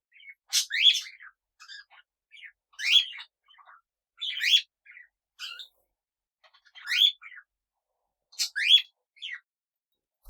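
Pet parrots calling: a loud rising call repeated five times, with softer short chirps in between.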